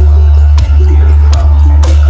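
Truck-mounted battle sound system playing music very loud: a deep, steady bass under a short repeating melody, with sharp drum hits.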